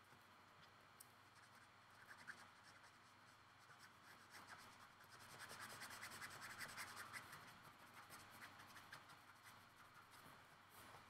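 Faint scratching of a Copic marker's felt nib stroked back and forth over paper, laying in gray colour; the strokes grow louder for a few seconds in the middle.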